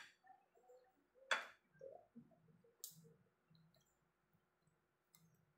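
Faint sound of a metal fork and spoon clicking against a ceramic plate while food is cut, with two sharp clicks about a second and a half apart. Soft chewing lies in between.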